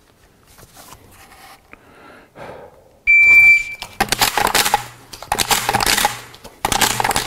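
Shot timer start beep, one steady high tone about three seconds in. It is followed by a rapid run of 12-gauge shells being thumbed through the loading port into the Stoeger M3000's extended tube magazine: fast continuous clicking and scraping with a short break near the end.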